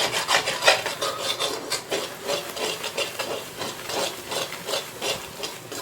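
Ladle scraping and stirring thick beetroot halwa in a kadai, in quick repeated strokes about three a second. The halwa has thickened and is being stirred continuously to keep it from sticking to the bottom of the pan.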